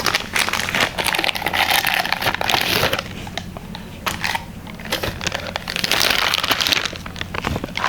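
Packaging crinkling and rustling, with scattered clicks and knocks, as the mixer grinder's stainless steel jars are unpacked and handled.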